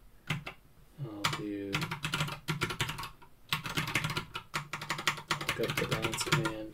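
Typing on a computer keyboard: a quick run of key clicks, denser in the second half, as a terminal command is typed.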